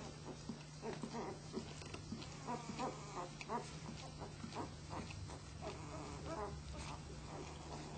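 A litter of newborn flat-coated retriever puppies squeaking and grunting in short, frequent calls, over a steady low hum.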